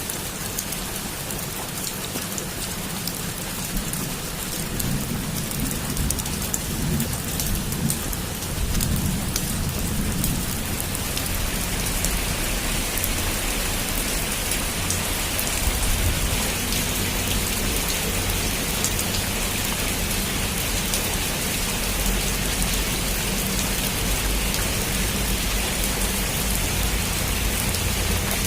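Heavy rain falling on a roof, a dense, steady hiss of drops, with a low rumble underneath that grows stronger about ten seconds in.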